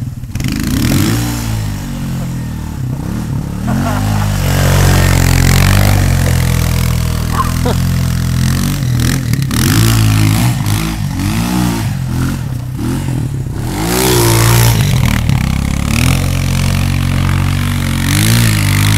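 Quad (ATV) engine revving up and down again and again as it is ridden and wheelied in snow, each burst of throttle rising and then falling back.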